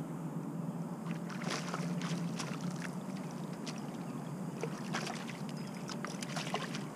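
Small boat on the water: sharp splashes and knocks come and go over a steady low hum.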